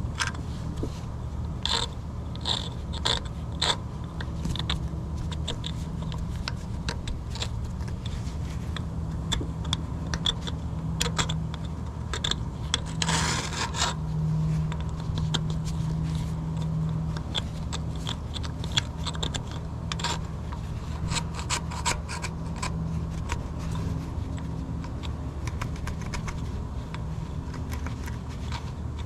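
Hand scraping on a metal machine casting during paint preparation, with scattered clicks and knocks of the tool and a longer scrape about 13 seconds in, over a steady low hum.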